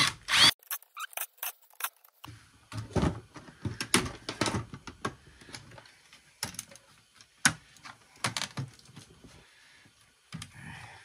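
A cordless screwdriver runs briefly at the start, then scattered clicks and knocks as an old modem's circuit board and its screws are worked loose and handled on a workbench.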